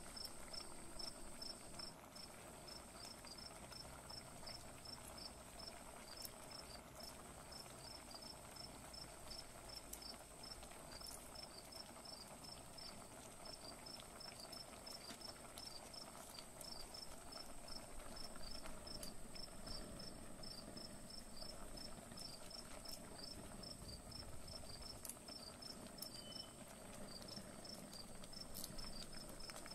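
A cricket chirping steadily, several short high chirps a second with brief gaps, over a faint steady high whine. Beneath it a pot of curry bubbles softly at the boil.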